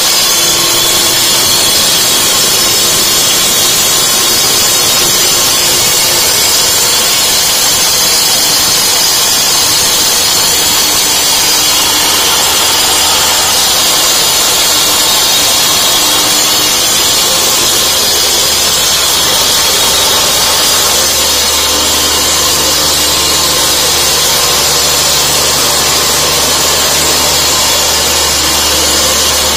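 Single-phase electric concrete cutter with a 12-inch diamond segment blade cutting through a 4-inch reinforced concrete slab: loud, steady grinding with a high whine, a deeper hum joining about two-thirds of the way through.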